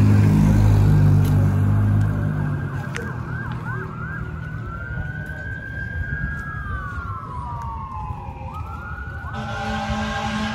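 An emergency vehicle siren sounding: a few quick yelps, then a slow wail that falls and climbs again. A vehicle engine runs loudly close by at the start, and another steady engine hum comes in near the end.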